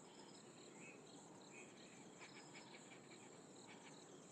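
Faint insects chirping in the bush: a steady high trill with a repeating chirp over it, and a few faint ticks a little over two seconds in.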